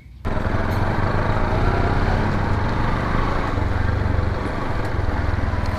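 Motorcycle engine running steadily, heard from the rider's own bike while riding; it starts suddenly just after the beginning.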